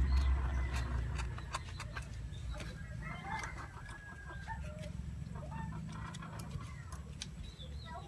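Chickens clucking, over a low hum that is strongest in the first second. Scissors snip a few times near the start as they cut through the leather cover.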